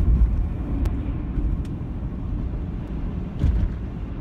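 Steady low rumble of a car driving, heard from inside the cabin. Two light clicks come in the first two seconds, and a short thump about three and a half seconds in.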